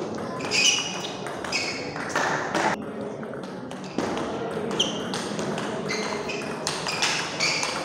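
Table tennis ball in a rally, a quick, uneven series of sharp ringing clicks as it is struck by the bats and bounces on the table.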